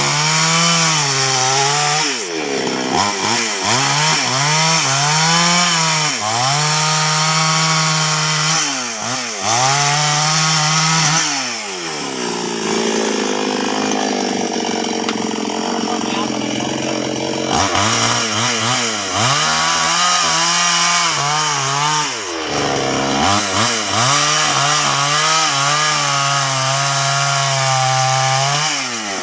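Two-stroke chainsaw running at high revs while cutting albasia wood. The engine repeatedly drops in speed and revs back up, and for several seconds mid-way it runs lower and rougher, as if loaded down in the cut.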